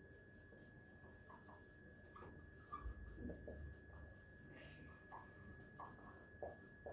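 Faint squeaks and scratches of a marker pen writing on a whiteboard, in short strokes. A steady, faint high-pitched whine sounds underneath.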